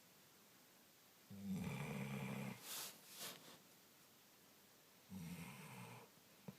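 A sleeping pet snoring: two snores about four seconds apart, each lasting about a second, the first followed by two short airy breaths.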